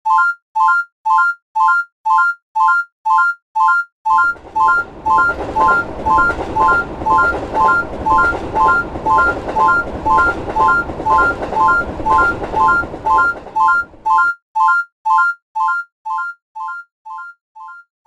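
Railroad crossing warning bell ringing with an electronic ding, about two strikes a second. A train's running noise passes under it from about four seconds in to about fourteen seconds. The bell then fades away near the end.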